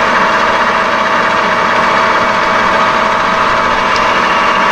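Metal lathe running steadily at about 200 RPM, with the tool starting to cut the corners off a spinning square aluminium plate.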